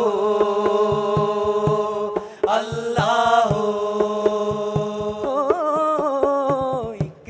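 A devotional song to Khwaja playing as background music: one voice holds long wordless notes over a steady beat of drum strikes. Near the end the notes waver and turn.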